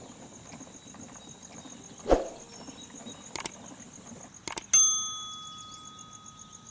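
A sharp metallic ding that rings out and fades over about two seconds, preceded by a dull knock and a few light clicks. Insects trill steadily throughout.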